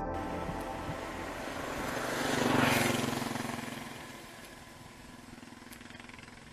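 A vehicle passing by: its noise swells to a peak about two and a half seconds in, then fades away.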